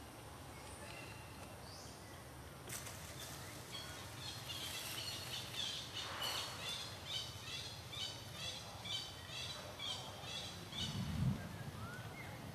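Outdoor ambience with a high chirping call repeated in a quick series, about two chirps a second, starting about three seconds in and running for several seconds. A low thump sounds near the end.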